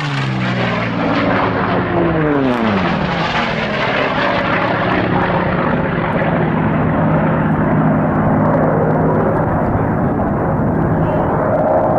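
Propeller aircraft flying low past, the engine pitch dropping as it goes by, twice in the first three seconds, then a loud steady engine drone.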